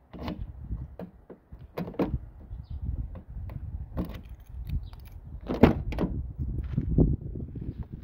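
Key worked in the driver's door lock of a 1985 Oldsmobile Delta: a run of clicks and key jingles, then the door latch releasing and the door opening, with the loudest clunks a little past halfway through.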